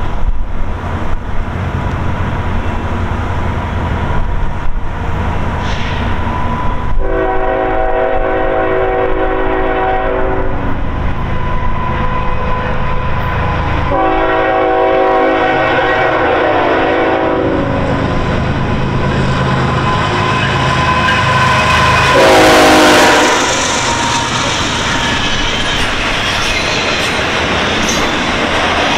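CN freight train's diesel locomotive rumbling past with its horn sounding two long blasts and then a short one; the short blast, about two-thirds of the way in, comes with the loudest moment.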